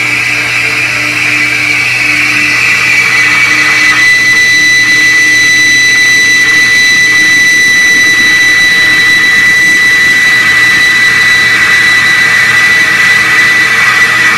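Flow bench running, drawing air through a Harley-Davidson M8 cylinder head under test: a loud, steady rush of air with a high whine, getting a little louder a few seconds in.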